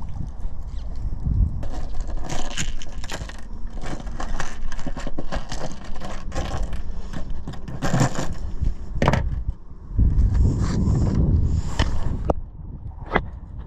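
Irregular knocking and scraping, many short knocks, with bursts of low rumble in the middle and near the end.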